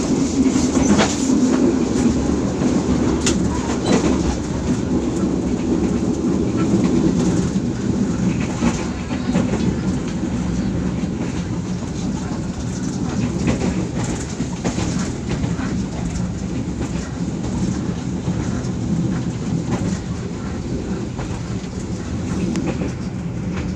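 Passenger train running along the track, heard from on board: a steady rumble with a few sharp wheel clicks in the first few seconds.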